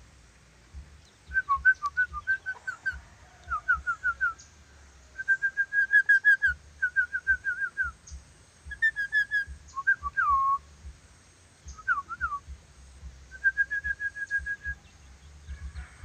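Ornate lorikeet whistling in quick runs of short, clear notes, several notes to a run, with short pauses between runs; one note about ten seconds in swoops downward.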